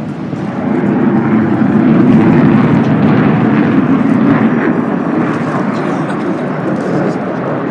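Aircraft engine noise as a plane flies past, swelling to its loudest about two seconds in and then slowly fading.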